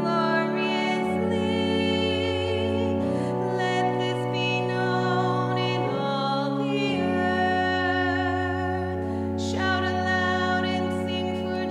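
Church music for the responsorial psalm: long held instrumental chords under a sung melody with vibrato, with the bass note changing every second or two.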